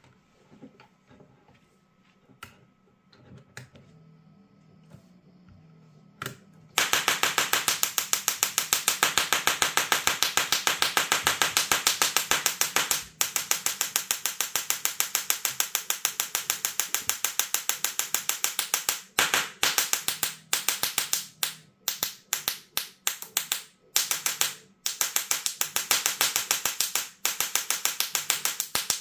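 Small solid-state Tesla coil sparking from its discharge needle: a loud, rapid, even train of crackling snaps that starts suddenly about seven seconds in and, in the last third, keeps breaking off and starting again. Before it there are only a few faint clicks.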